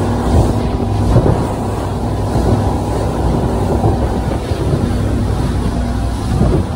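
Center-console boat running at about 25 mph: wind rushing over the microphone and water rushing past the hull, over the steady drone of Yamaha 425 V8 outboard engines.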